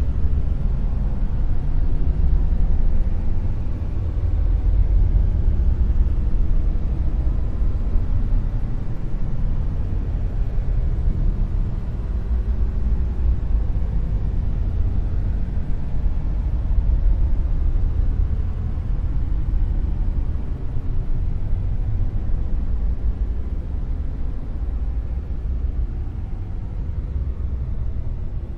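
Dark noise: a steady, deep, rumbling hiss with most of its weight in the lows and little treble, swelling and easing slightly in level.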